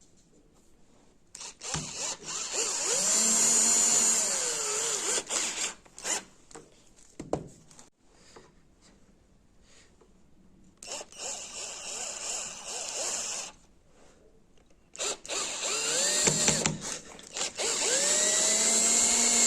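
Electric drill run in three bursts, spinning a nail chucked in place of a broken drill bit to bore into wood. Its motor whine rises as it spins up and falls as it slows, with quiet pauses between the runs.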